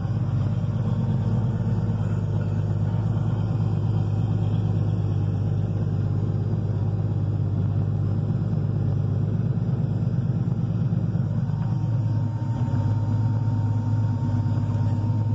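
Porsche 911-based 934 Turbo widebody race car's air-cooled flat-six idling steadily, heard from inside the cabin.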